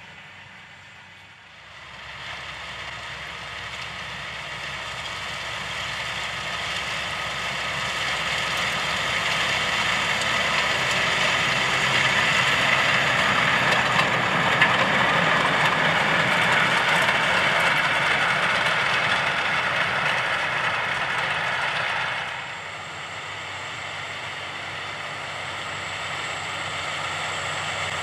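John Deere 7R 310 tractor's six-cylinder diesel engine working under load, pulling a trailed disc cultivator through the soil. It swells steadily to its loudest as the tractor passes close by. About two-thirds of the way in it drops suddenly, then builds again as the tractor approaches.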